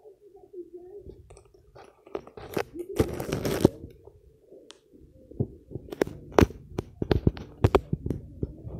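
Branches and leaves rustling and crunching close to the phone as someone pushes through a bush, loudest around three seconds in. Then a string of sharp crunches and knocks from footsteps on dry, leaf-littered dirt.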